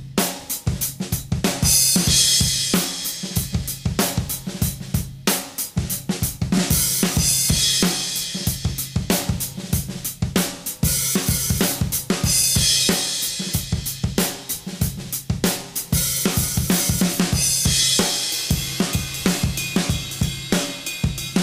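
Acoustic drum kit played in a steady groove, hi-hat, snare and kick throughout, with crash cymbals about every five seconds. The kit is a Tama Starclassic Performer with birch shells, a Mapex birch snare and Zildjian and Sabian cymbals, recorded on a single large-diaphragm condenser mic about a foot in front of the kit, with light reverb and compression added.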